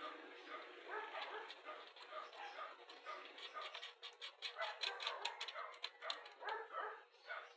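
A dog whimpering and yipping in short, wavering calls, with a quick run of sharp clicks about halfway through.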